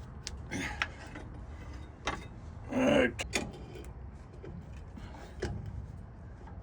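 Hand tools working on a trailer's air brake assembly: a scattered series of short metallic clicks and knocks, with a brief pitched clank about three seconds in.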